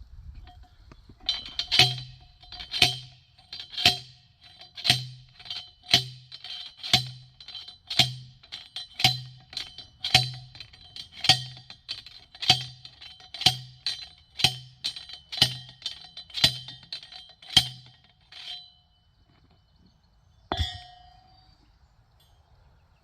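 Steady hammering on metal: about sixteen ringing clangs, roughly one a second, each with a dull thud beneath it. They stop at about 18 s, and one single clank follows a couple of seconds later.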